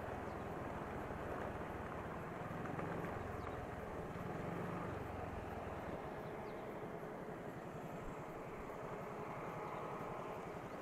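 Motor scooter being ridden, with a steady, low mix of engine and road noise.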